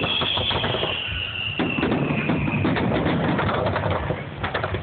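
Fireworks: a long high whistle that slowly falls in pitch and fades out a little over halfway through, over many sharp crackling pops and low rumble.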